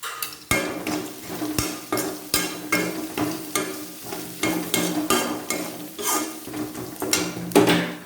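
Spatula stirring chopped onions and ginger frying in oil in a pan: repeated scraping strokes against the pan, about two a second, over a light sizzle.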